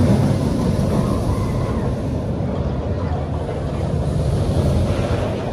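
Roller coaster train rumbling along steel track overhead, loudest as it passes at the start and settling into a steady low rumble, with wind on the microphone.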